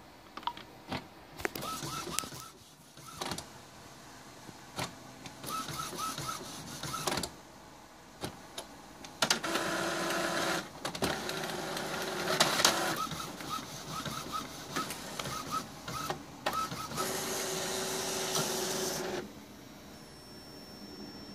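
Epson WorkForce WF-2750 inkjet all-in-one printing a page. Clicks and short motor whirs come first as it feeds the paper, then longer stretches of running as the print head shuttles back and forth, and it stops near the end.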